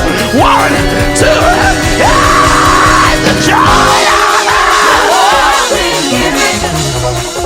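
Live gospel band with a singer's high, held vocal lines over drums and bass; the drums and bass drop out about four seconds in, leaving the voices and keys.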